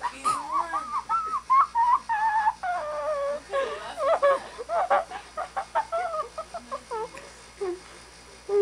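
A person making high, squeaky whistling and whimpering vocal noises in quick runs that slide up and down in pitch. They thin out and drop lower near the end.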